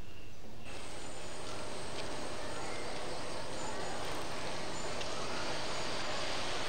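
Quiet room tone, then less than a second in a steady outdoor background hiss begins and holds evenly, with no distinct events.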